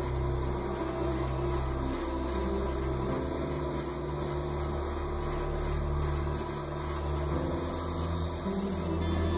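Slow background music with long held low notes that change every second or two.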